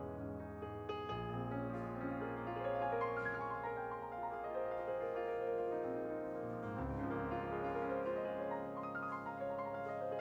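Background music led by piano, with sustained chords and a soft melody over a low bass line.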